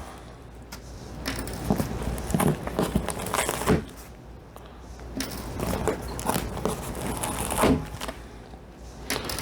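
A stapled cardboard shipping box being pried and pulled open by hand: irregular scraping, tearing and crinkling, with a few sharper knocks.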